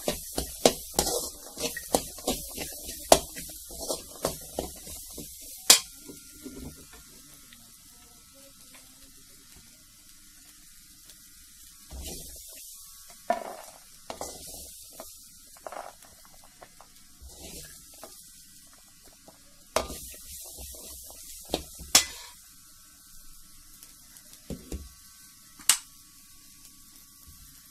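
A steel spoon stirring and tossing sprouted pulses in a steel bowl: rapid clinks of the spoon against the bowl for the first six seconds, then softer rustling and scraping of the moist grains with only an occasional clink.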